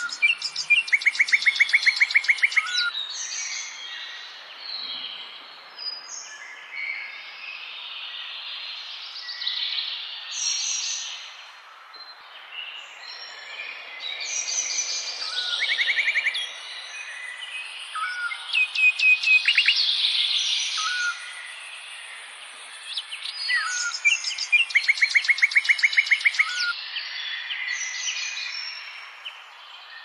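Several songbirds singing and chirping together, with a loud, fast trill of rapidly repeated notes recurring several times.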